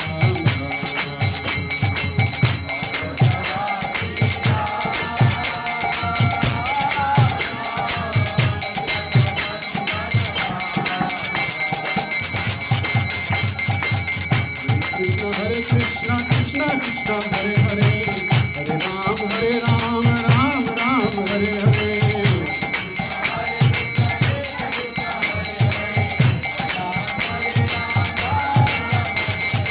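Devotional kirtan: voices chanting a melody over a harmonium drone, with small hand cymbals (kartals) ringing and a drum beating a quick, steady rhythm.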